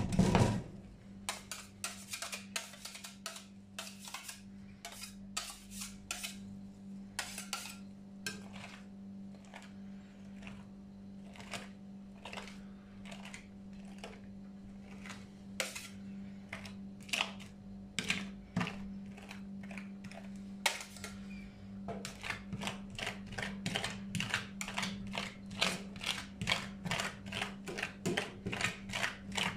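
Metal spatulas tapping and scraping on a stainless-steel ice cream roll cold plate as the chocolate ice cream mixture is chopped and spread thin, over a steady low hum. The taps are scattered at first, then come fast and even, about three or four a second, from a little over two-thirds of the way in.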